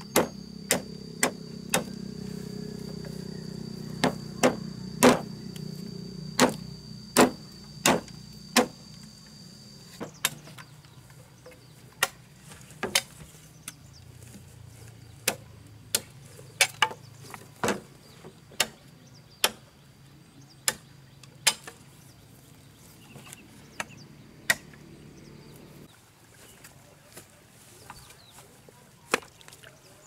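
Machete chopping bamboo poles: a string of sharp, irregular chopping strikes, some in quick runs and some a second or more apart. Under them a low steady hum stops about 26 seconds in.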